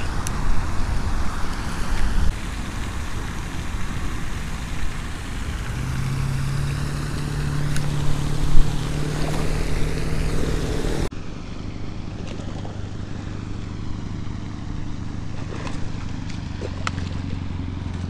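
Wind buffeting the microphone, a rumbling rush throughout, with a steady low hum that sets in about six seconds in and sits a little lower after about eleven seconds. There is one sharp tap at about eight and a half seconds.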